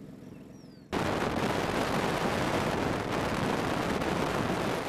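Loud rushing wind buffeting the camera microphone, cutting in abruptly about a second in and staying loud and ragged.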